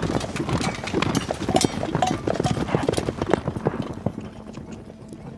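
Hooves of several ridden horses clopping in a dense, irregular patter. The hoofbeats fade away about four seconds in.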